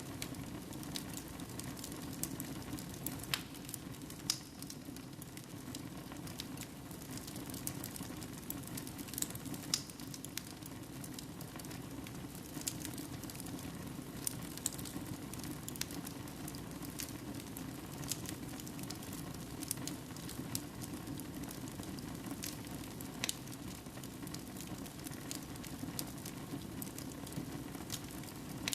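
Wood fire burning in a fireplace: a steady low rush of flame with irregular sharp crackles and pops of the burning logs.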